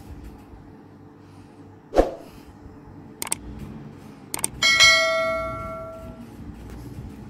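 Subscribe-button animation sound effect: two sharp mouse clicks, then a bright bell chime that rings out and fades over about a second and a half. A single low thump comes about two seconds in, before the clicks.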